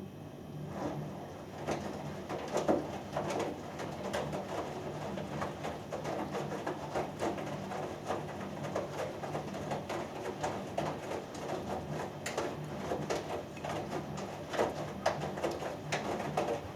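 Hoover Dynamic Next front-loading washing machine in its main wash: the drum turning and the laundry and water tumbling and sloshing over a steady motor hum. The tumbling starts about a second in and stops near the end.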